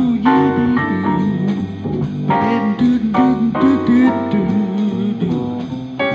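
Harmonica playing a bluesy lead line with bent, sliding notes over a recorded jazz-blues backing track with guitar and drums.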